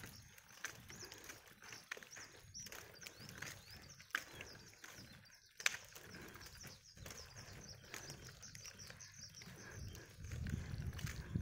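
Small birds chirping, many quick high chirps one after another, faint. Footsteps on pavement click every second or so, and a low rumble of wind on the microphone rises near the end.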